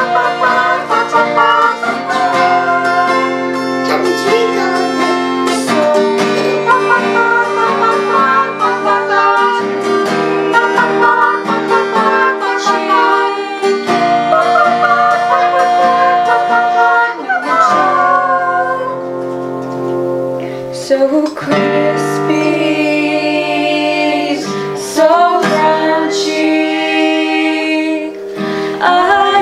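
Girls singing a song together in harmony, accompanied by an acoustic guitar.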